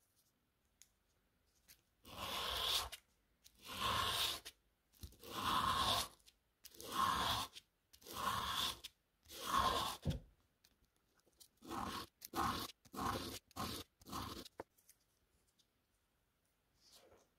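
Brushed stainless-steel watch bracelet rubbed back and forth on a wet abrasive pad, re-brushing the finish to soften scratches. Six long, slow rasping strokes are followed by about six shorter, quicker ones, with one faint stroke near the end.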